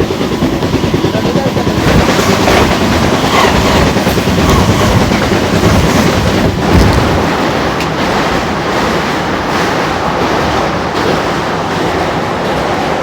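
A train running past on the track, a loud steady rumble of wheels and wagons that swells about two seconds in and eases a little after about seven seconds.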